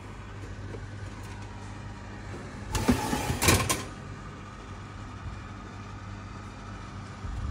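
Metal oven rack with a baking tray being slid out on its runners: about three seconds in, a second of metal scraping and clatter with a few sharp clicks, over a steady low hum.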